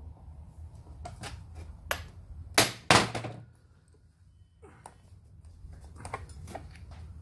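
Clicks and clanks of hand tools on a corroded submersible pump's metal housing as its bolts are undone, with two loud knocks a little under three seconds in.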